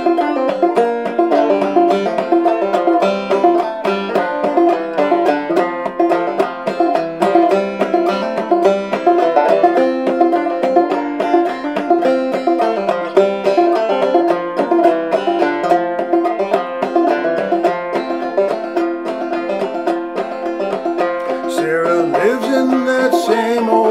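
Clawhammer banjo, a 1903 Fairbanks Whyte Laydie #2 with a pie-plate resonator in F tuning (fDGCD), playing a steady instrumental break with quick plucked and brushed notes. A man's singing voice comes in over it near the end.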